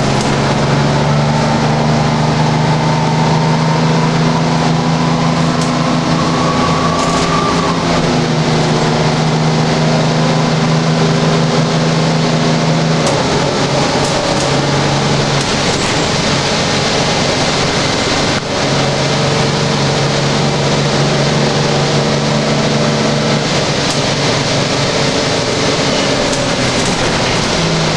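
Interior of a GM Classic transit bus underway: the engine runs steadily under road noise and small rattles, with a whine that rises over the first several seconds. About halfway the engine note drops away, then picks up again a few seconds later.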